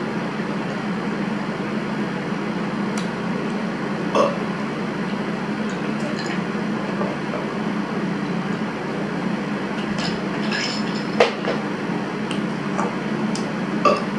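A person drinking from a glass of iced soft drink, with a few sharp clinks of ice and glass, the loudest late on, over a steady background hum.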